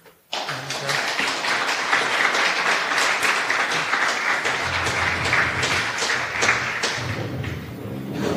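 Audience applauding, many people clapping: it starts abruptly and thins out near the end.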